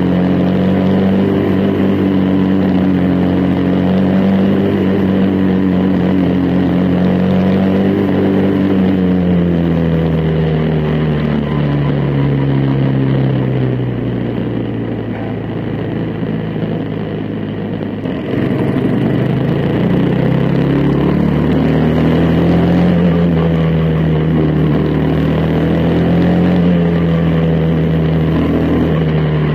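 Quarter midget race car's single-cylinder Briggs & Stratton Animal engine running hard at racing speed, heard close from the car itself. About ten seconds in the revs fall away and the engine goes quieter for a few seconds, then it comes back on throttle, picks up and holds steady again.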